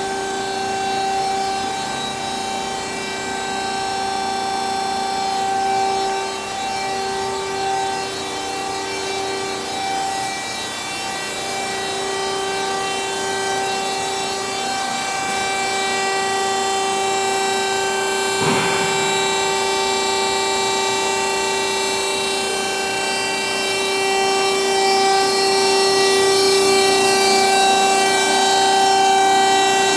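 DoALL TF-2021NC automatic vertical band saw running, a steady whine of several even tones over a hiss. A brief sweeping rasp comes about two-thirds of the way in, and the sound grows a little louder near the end.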